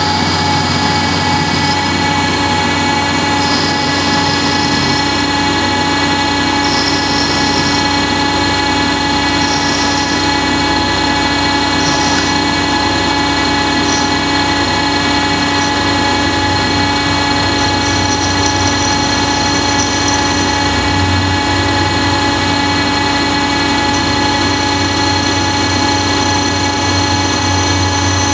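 CNC tool-room lathe turning a small 6061 aluminum part dry. The spindle runs with a steady, multi-toned whine at constant speed, and short higher-pitched hissy patches come and go every couple of seconds in the first half as the tool cuts.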